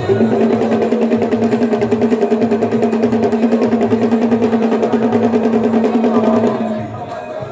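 Rapid, even drum roll of about eight beats a second over a steady held tone. Both stop together near the end.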